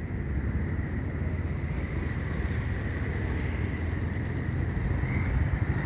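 Steady low rumble of a vehicle moving through city traffic: engine and road noise mixed with wind on the microphone, and a faint steady high whine.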